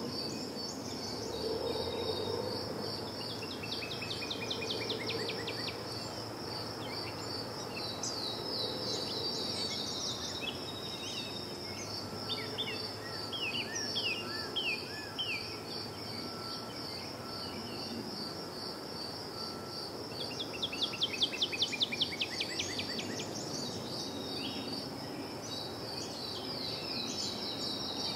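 Outdoor park ambience: a steady, high, evenly pulsing insect chirp, likely crickets, runs throughout. Birds sing quick trills over it several times, the loudest about three-quarters of the way through, above a low background hum.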